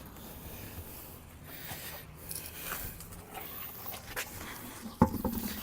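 A truck wheel and tire being pulled off the hub studs by hand, with faint scraping and small clicks, then one sharp thump near the end.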